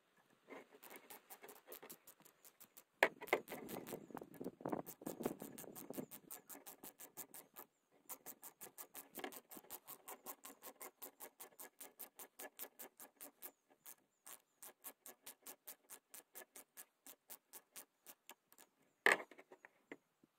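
Socket ratchet clicking steadily, about four clicks a second, as it turns the draw bolt that tightens steel wire around a rubber hose. There is some scraping handling noise as it is fitted in the first few seconds, and one sharper knock near the end.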